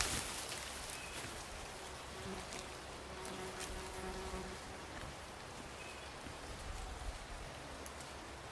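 Faint steady outdoor hiss with a small insect buzzing briefly a few seconds in, over light scratching and crumbling of bare hands digging in loose soil.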